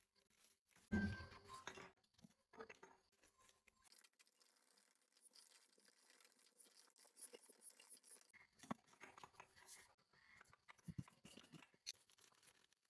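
Faint crinkling and tearing of small plastic sachets being emptied into a glass jar, with light clinks of the glass and a thump about a second in.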